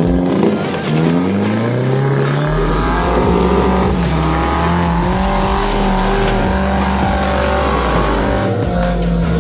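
Suzuki Jimny Katana's engine revving up over about two seconds, then held at high revs under load as the 4x4 climbs a steep rocky slope.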